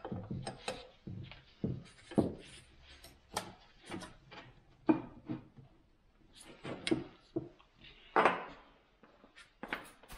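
Irregular knocks and clinks of tools and metal fittings being handled at a hydraulic hose connection, a dozen or so sharp hits, the loudest about two, five and eight seconds in.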